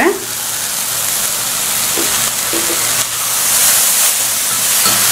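Chopped vegetables sizzling in hot oil in a kadai as chopped tomatoes go in and are stirred with a metal spoon: a steady hiss that grows slightly louder.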